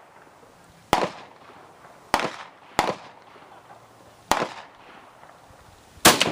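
Gunshots at a shooting range: about five sharp reports at uneven intervals, two of them well under a second apart, each followed by a short echo. The closest pair comes faster than one bolt-action rifle can be cycled, so more than one gun is firing.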